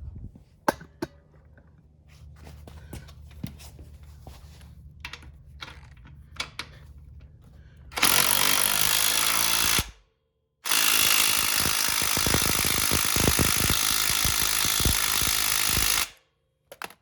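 A few light clicks and knocks of a tool being set in place, then an impact wrench hammering the rear axle nut tight in two runs, about two seconds and then about five seconds, with a short pause between; each run stops abruptly.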